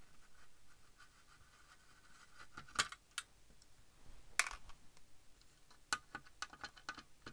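Screws being undone from the unit's case with a screwdriver: scattered sharp clicks and small metallic clinks, the loudest about three and four and a half seconds in, with a quicker run of light clicks near the end.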